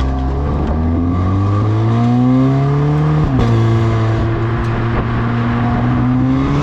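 VW Golf R's turbocharged 2.0-litre four-cylinder engine and exhaust in Eco drive mode, pulling under acceleration with the pitch rising steadily. The pitch drops sharply at an upshift a little over three seconds in, then holds steady and starts climbing again near the end.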